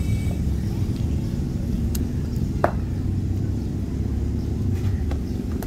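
Steady low outdoor rumble, with a couple of faint short knocks about two and two and a half seconds in.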